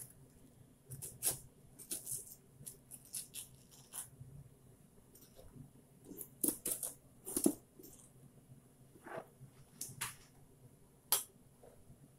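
A spoon scraping seeds out of zucchini strips and knocking against a plastic cutting board: irregular short scrapes and taps, the loudest in a cluster a little past the middle and one sharp tap near the end.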